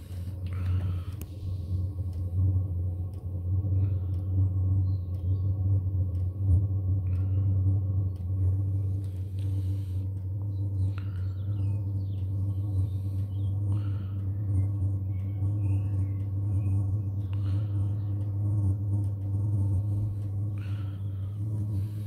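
2 kW Chinese diesel air heater running: a steady low hum from its fan and burner, with a faint constant whine above it.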